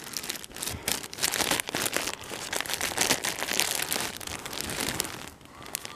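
Clear plastic poly bags of folded clothing crinkling as a hand rifles through them in a cardboard box. It is a busy, continuous crackle that dies away near the end.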